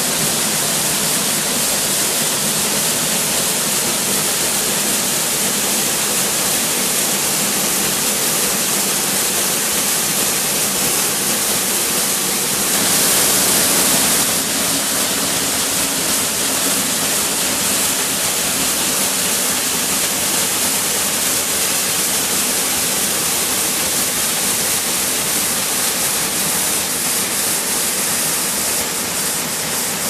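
Narrow waterfall pouring down a rock gorge: a steady, unbroken rush of falling water that swells briefly a little under halfway through.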